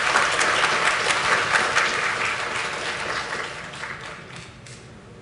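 Audience applauding: dense clapping from a seated crowd that thins out and dies away about four seconds in.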